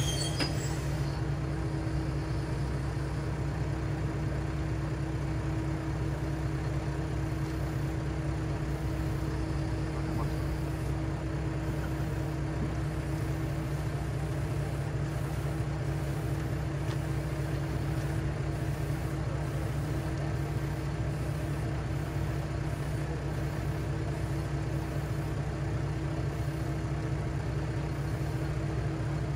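Diesel railcar KiHa 3710 standing at a platform with its engine idling: a steady low rumble with a constant hum, unchanging throughout.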